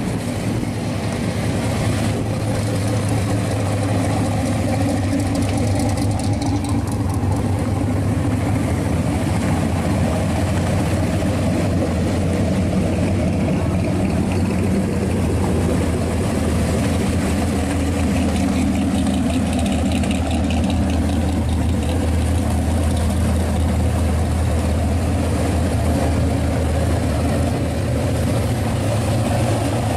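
Classic cars' engines idling and rolling slowly past close by. The running is loud and steady, with a deep low tone.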